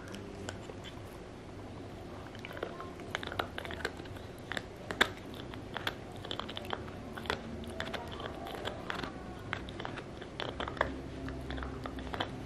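Cairn terrier gnawing a deer antler chew: irregular hard clicks and scrapes of teeth on antler, busiest through the middle, with the sharpest click about five seconds in.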